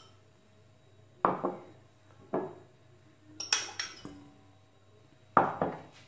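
A fork and small serving bowls clinking against a stainless steel mixing bowl as seafood is tipped in and stirred: four separate sharp clinks, each with a short metallic ring, with quiet between them.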